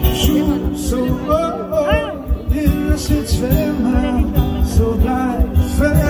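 Live band music with a singer holding drawn-out, wavering notes over sustained chords and a steady beat.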